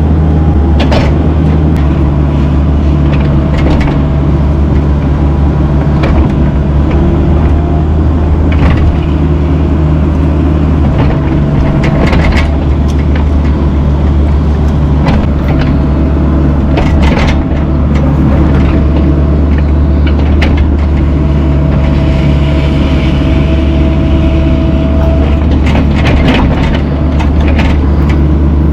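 Mini excavator's diesel engine running steadily under load while boulders are set, with scattered sharp knocks and clanks every few seconds.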